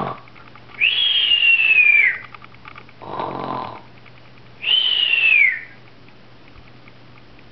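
A person snoring in an exaggerated way: a short rasping snore on the in-breath, then a long whistle falling in pitch on the out-breath, twice.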